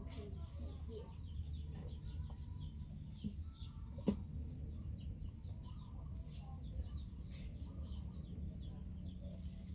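Birds chirping in quick, repeated short calls over a steady low hum, with a single sharp click about four seconds in.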